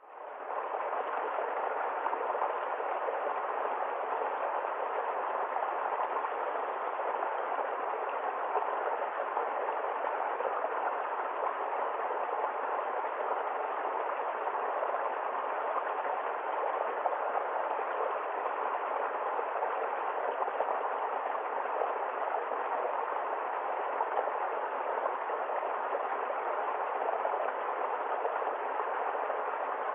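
Flowing water babbling, a steady continuous rush that fades in at the start and holds level.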